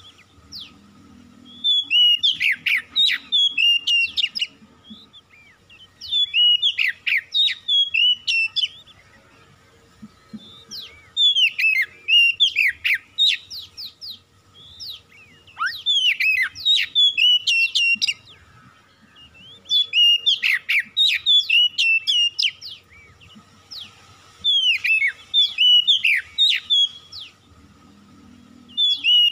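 Oriental magpie-robin singing: about six phrases of quick, rapidly rising and falling whistled notes, each two to three seconds long, with short pauses between.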